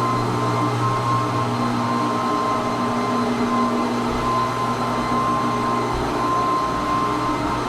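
Floor buffer running steadily as it works stain into a fir floor: an even motor hum with a thin high whine over it.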